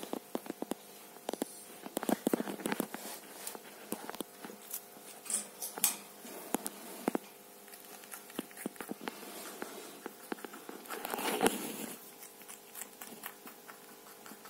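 New Zealand White rabbit eating from a steel bowl: irregular small clicks and crunches of chewing and of contact with the bowl, with a louder rustle lasting about a second near the end.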